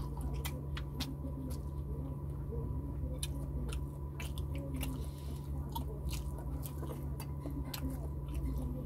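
Close-up chewing and mouth sounds of someone eating fried tilapia and rice by hand: irregular wet clicks and smacks several times a second, over a steady low hum.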